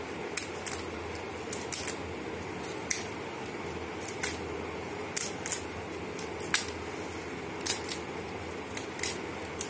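Fresh Calcutta betel leaves being torn by hand into small pieces: short crisp rips at irregular intervals, roughly one a second.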